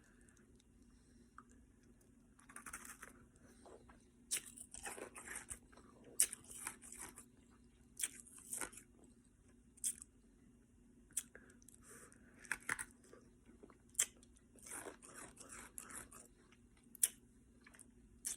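Ice being chewed: a run of irregular crunches and crackles, some sharp and loud, in clusters with short pauses between.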